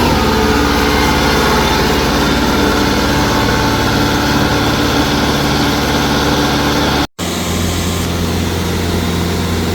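Tractor engine running steadily. The sound cuts out briefly about seven seconds in, then comes back as a steadier low hum.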